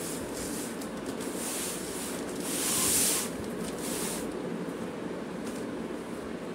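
Plastic packaging wrap crinkling and rustling as it is handled, in uneven bursts that are loudest about three seconds in and ease off after about four seconds, over a steady background hiss.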